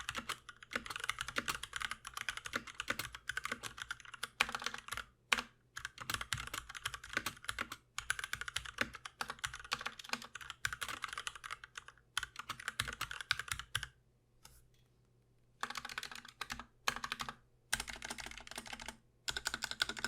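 Typing on an Akko Neon 3061S 60% mechanical keyboard with Gateron White linear switches and PBT double-shot keycaps: a dense run of keystroke clicks that stops about fourteen seconds in for a second and a half, then comes back in short bursts.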